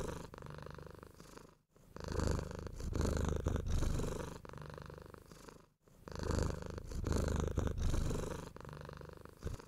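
Domestic cat purring steadily, the rumble swelling and easing with each breath, with two brief pauses between breaths.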